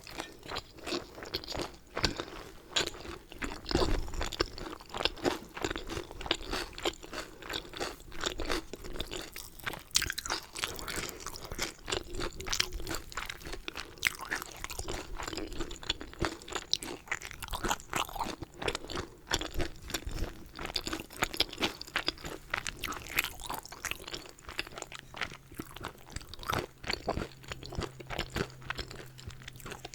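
Close-miked chewing of dumplings and tteokbokki: continuous chewing with many small irregular mouth clicks and crunches.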